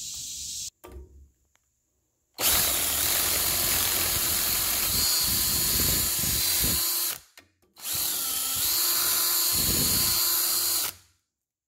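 Power drill boring through metal pipe strap clamped in a vise, running steadily in two runs, the first about five seconds and the second about three, with a brief stop between.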